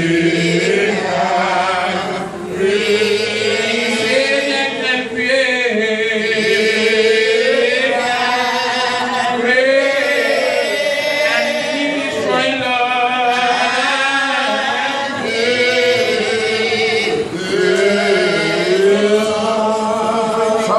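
A man singing solo into a handheld microphone, amplified through a sound system, with long held notes that waver and glide from one pitch to the next in a slow, chant-like line.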